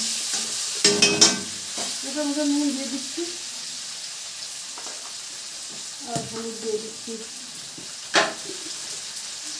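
Vegetables sizzling in oil in a metal kadai, with a metal spatula clanking and scraping against the pan in a quick cluster about a second in. A single sharp click comes near the end.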